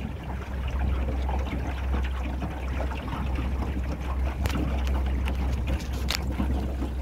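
Small aluminum boat under way on open water: a steady low rumble under the hiss of water and wind, with two sharp clicks about four and a half and six seconds in.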